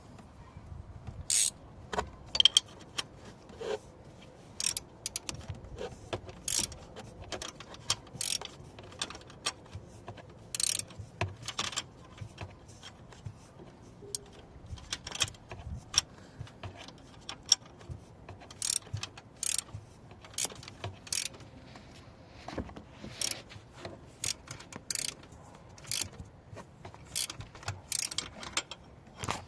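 Hand ratchet wrench clicking in short, irregular runs as a starter motor mounting bolt is turned by hand, with occasional metallic taps of tools.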